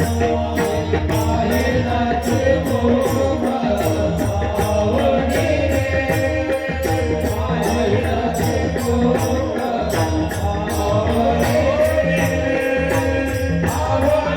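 Warkari devotional singing: a male singer's voice gliding through ornamented melodic phrases over a sustained drone. Small cymbals keep a steady beat of about four strikes a second.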